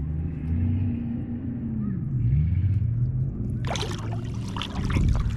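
Low, steady hum of the boat's motor, one tone in it slowly wavering up and down in pitch. About four seconds in there is a brief noisy burst, as of the hooked bass splashing at the surface.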